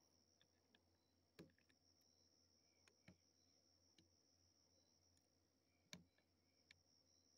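Near silence: a few faint clicks and knocks of a phone being handled against a telescope eyepiece, the most distinct about a second and a half in, three seconds in and six seconds in, over a faint steady high-pitched tone.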